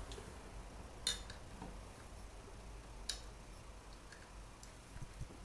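Two sharp, light clicks about two seconds apart, with faint ticks between and soft low knocks near the end. This is hand work on the engine while the new plastic upper timing chain guide is put in place.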